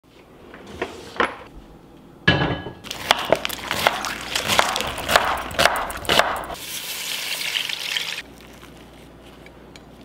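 Kitchen food-prep sounds: a couple of clicks and a drawer being opened, then a dense run of sharp knocks from a knife chopping on a wooden board, mixed with other prep noises, ending in about a second and a half of steady hiss.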